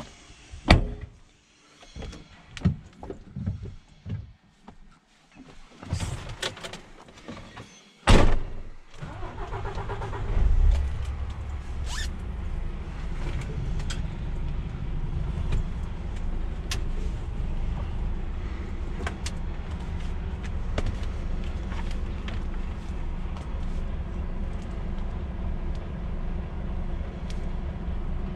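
Knocks and clunks of someone climbing into a truck cab, then a loud bang of the cab door shutting about eight seconds in. About ten seconds in, the DAF XF 480's PACCAR MX-13 straight-six diesel starts and settles into a steady low idle, heard from inside the cab.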